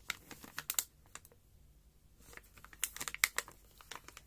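Crinkling of a plastic antistatic bag around a graphics card as it is squeezed and handled, in two bursts of quick sharp crackles, the second starting a little after two seconds in.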